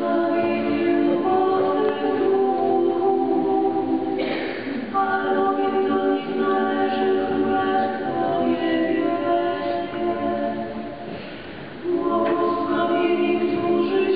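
Many voices singing a church hymn together, in long held phrases with a short break about four seconds in and a dip just before the end.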